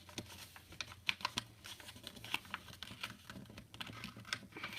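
A sheet of paper being folded and creased by hand: a string of irregular soft crinkles and clicks.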